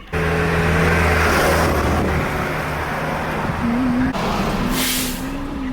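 Road traffic: vehicle engines running close by, with a steady low hum and a brief hiss near the end.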